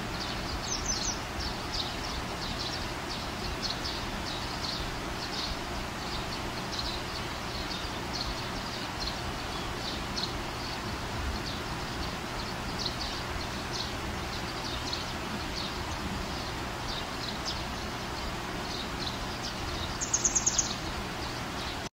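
Outdoor ambience: birds chirping repeatedly, short high notes two or three times a second, over a steady hiss. A brighter, higher call comes about a second in and again near the end.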